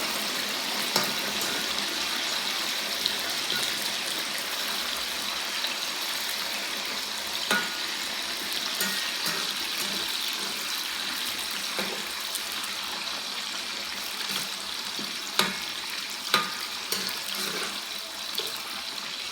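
Yam chips deep-frying in hot oil: a steady sizzling hiss, with a few sharp clicks from time to time.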